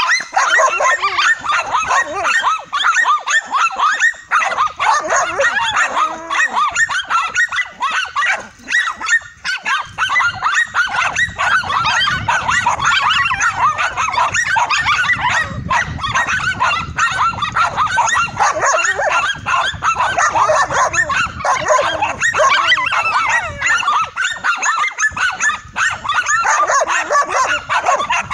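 Several dogs barking and yapping at a cornered tegu lizard, the calls rapid, high-pitched and overlapping without a break.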